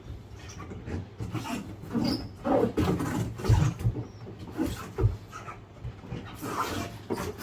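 Irregular rubbing, squeaks and knocks of hands wiping dirt off a washing machine's rubber door seal.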